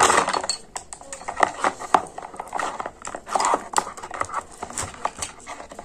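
Hands handling the accessories and packaging of an action-camera kit: irregular sharp clicks and taps of small plastic parts, with short bursts of rustling.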